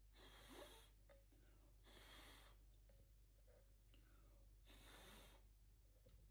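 Three faint, short puffs of breath blown by mouth across wet poured acrylic paint, pushing it outward to form a bloom.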